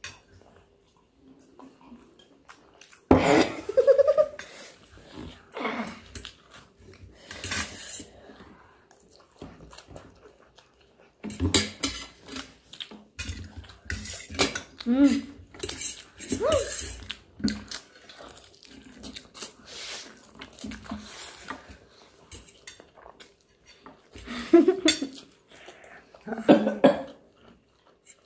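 Forks clinking and scraping on metal plates as noodles are eaten fast, in scattered short clicks and scrapes, with a few short bursts of voice.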